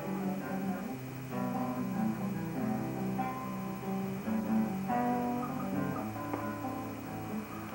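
Classical nylon-string guitar played fingerstyle: a melody of separately plucked notes over lower bass notes.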